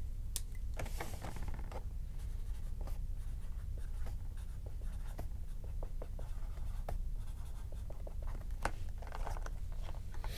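Felt-tip marker writing on a cardboard card box in a few short scratching strokes, among light clicks and rustles of cards and packaging being handled.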